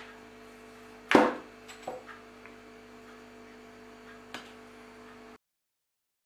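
A small steel three-jaw lathe chuck set down on a cardboard-covered table with one knock about a second in, then a few light clicks as a small tool is handled, over a steady electrical hum. The sound cuts off abruptly about a second before the end.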